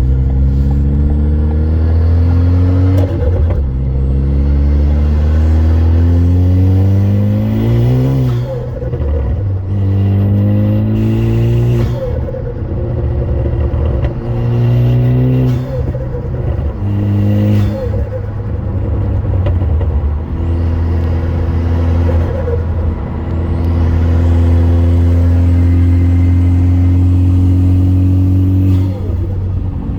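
2016 Ford Focus ST's turbocharged four-cylinder, straight-piped with an aftermarket intake, accelerating through the gears: the exhaust note climbs in pitch again and again and drops back at each shift, with a faint rising turbo whistle above it. For a stretch in the last third the engine note holds steady.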